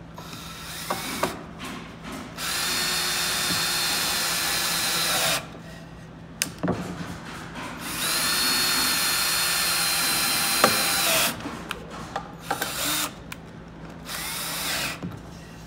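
Ryobi cordless drill driving 2.5-inch screws into a cedar 2x4 joint: two steady runs of about three seconds each, with a short spurt of the motor about a second in and another near the end, and a few sharp clicks between the runs.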